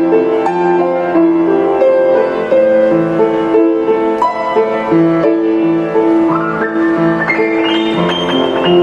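Piano music: a melody of repeated notes over a low accompaniment, with a rising run of notes about six seconds in.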